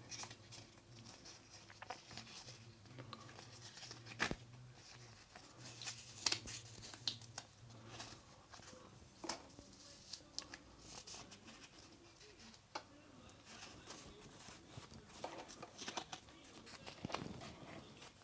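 Hands handling packaging: scattered light clicks, tapping, and short bursts of paper and card rustling and tearing, with a faint low hum during the first half.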